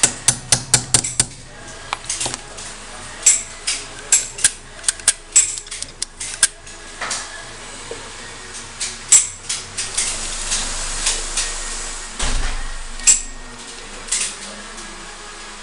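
Steel-headed hammer tapping a pin punch to drive a pin out of a pistol frame: a quick run of about six light taps in the first second or so. Then scattered metallic clicks and clinks as parts and tools are handled on the bench.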